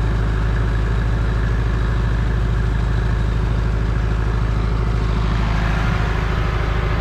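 Engine running at a steady, constant speed with a low, even drone, powering the unloading of grain from a hopper-bottom trailer into an auger.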